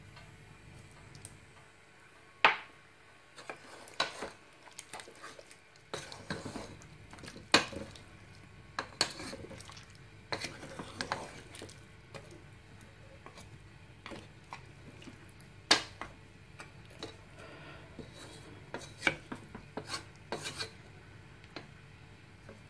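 Wooden spoon stirring a pork stew in a metal pot, scraping and knocking against the pot's sides and rim in irregular clacks, a few of them sharp and loud, over a faint steady low hum.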